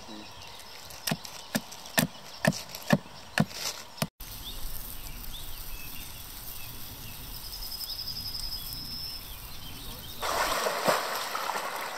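Seven sharp knocks of a hand tool striking into a wooden stick as it is split. After a cut, a campfire under an iron plate of meat gives a low steady noise with faint crackling, and a short high trill sounds in the middle. About ten seconds in, river water rushes and splashes.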